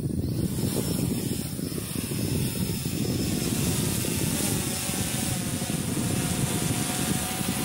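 Yuneec Typhoon H Plus hexacopter's six rotors running at high power as it lifts off and climbs, hauling a water-sampling bailer up on a line beneath it. A loud, steady propeller whir.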